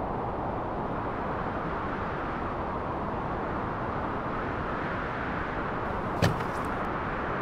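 Steady rushing outdoor noise, with one sharp latch click about six seconds in as a hatchback's tailgate is opened.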